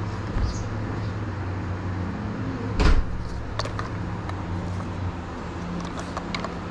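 A large hard-plastic toy blaster being handled and turned over, with one dull thump about three seconds in and a few light clicks later, over a steady low hum.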